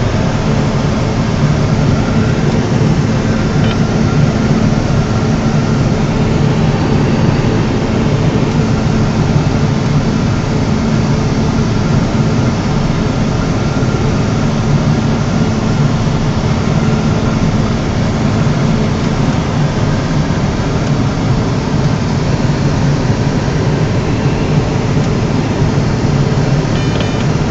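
John Deere 7760 cotton picker running steadily while picking, heard from inside the cab: a constant low drone of the diesel engine and harvesting machinery that does not change.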